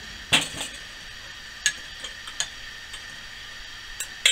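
Clatter of a French press coffee maker and a spoon being handled on a glass-topped table: a sharp knock about a third of a second in, then a handful of lighter clicks over the next few seconds.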